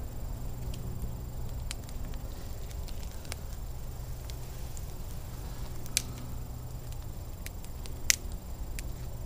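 Pine-wood campfire crackling with scattered sharp pops, two of them louder about six and eight seconds in, over a steady low hum.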